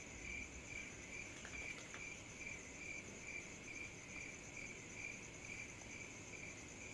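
Crickets chirping in the night: a steady high trill with a lower chirp pulsing about two and a half times a second, faint.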